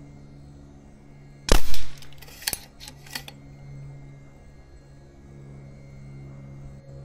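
A single shot from a .25 caliber pre-charged pneumatic air rifle, a sharp report about a second and a half in, followed by two or three lighter clicks about a second later. A steady low hum runs underneath.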